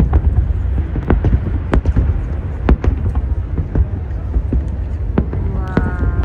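A fireworks display going off: irregular sharp bangs and crackles over a constant low rumble of booms and wind on the microphone. A short held tone sounds near the end.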